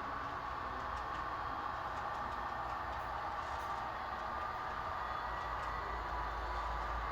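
Model Amtrak SDP40F diesel locomotive running on a layout: its Soundtraxx Tsunami 2 sound decoder plays a steady diesel engine sound through a small onboard speaker, with the train's running noise and a few faint ticks. It grows slightly louder toward the end.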